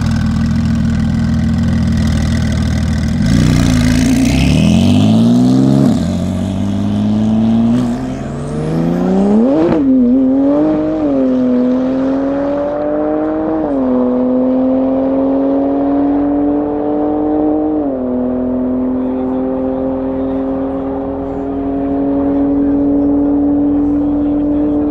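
A Mercedes-Benz V-Class van with a swapped 4.0-litre V8 biturbo AMG engine and a Porsche 911 launching side by side from a standing drag-race start. The engines hold steady revs for about three seconds, then the note climbs hard through the gears, dropping back at each of several upshifts as the cars pull away.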